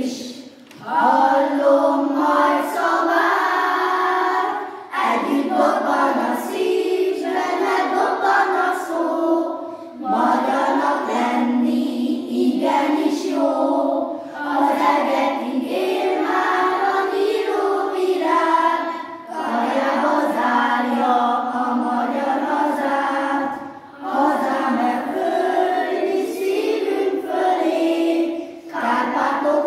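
A class of young schoolchildren singing a song together as a small children's choir, in phrases of a few seconds each with short breaks for breath between them.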